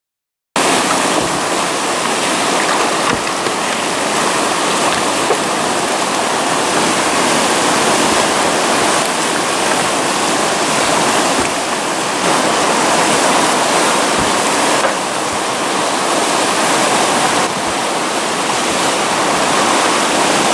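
White-water river rapids rushing: a loud, steady wash of churning water that cuts in abruptly about half a second in, with slight shifts in level a few times.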